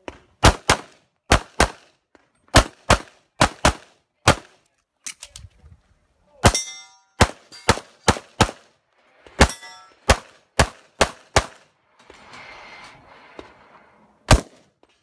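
Rapid pistol fire in a practical shooting stage, shots mostly in quick pairs. Twice, about six and a half and nine and a half seconds in, a hit steel target rings. The firing pauses briefly near the end and then resumes.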